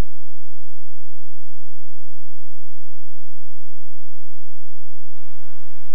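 Steady electrical mains hum with hiss from an off-air TV recording, with no speech or music; the hiss gets louder about five seconds in.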